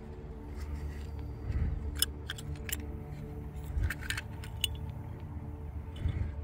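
Small corroded metal cases and pieces of cracked mirror glass clicking and tapping together as they are handled, a handful of sharp light clicks scattered through, over a steady low hum in the background.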